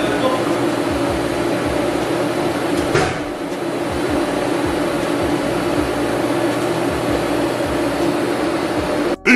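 TIG welding arc buzzing and hissing steadily as a turndown tip is welded onto an exhaust pipe, with a brief break about three seconds in.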